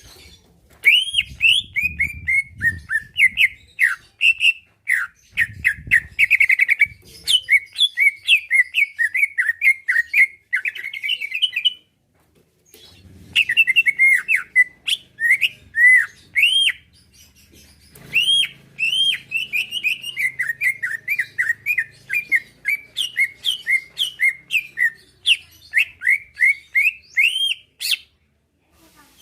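Green leafbird (cucak ijo) singing a fast, unbroken run of chirps and slurred, arching whistles, with two short pauses along the way.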